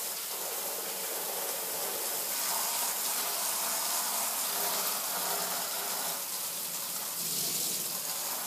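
Garden hose with a spray nozzle running a steady jet of water that splashes onto the ground at the doorway.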